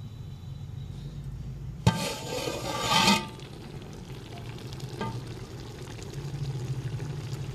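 Chicken curry sizzling in a metal pot over a gas flame, with a steady low hum underneath. About two seconds in, a sharp knock is followed by about a second of louder sizzling, and there is a lighter click near the five-second mark.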